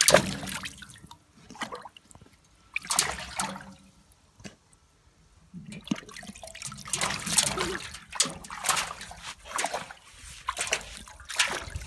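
Shallow water splashing and sloshing in a bathtub in irregular bursts as an animal wades and paws in it, with quieter pauses between the splashes.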